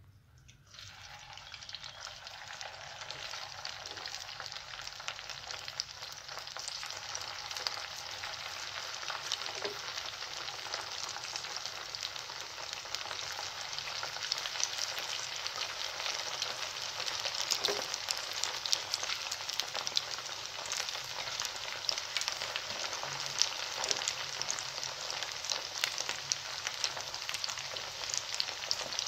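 Rice-batter pakodas deep-frying in medium-hot oil in a pan: a dense sizzle full of small crackles. It starts about a second in and grows louder over the first several seconds.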